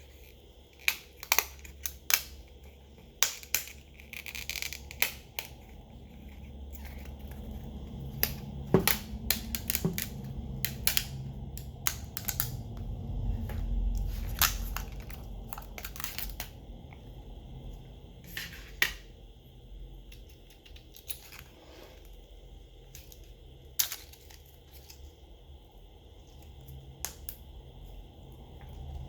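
Irregular sharp clicks, taps and light scraping of small hand tools and plastic phone parts being handled during a smartphone teardown, with a low rumble swelling about halfway through.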